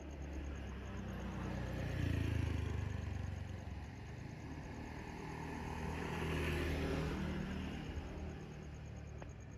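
An engine running, its sound swelling about two seconds in and again around six to seven seconds.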